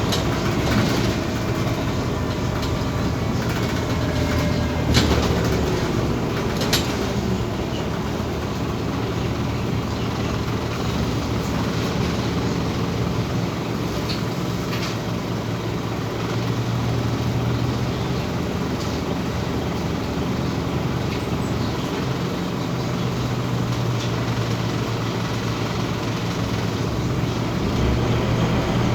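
Scania OmniCity city bus's rear-mounted diesel engine running steadily as the bus drives, a low hum with road noise. A couple of sharp clicks or knocks come about five and seven seconds in.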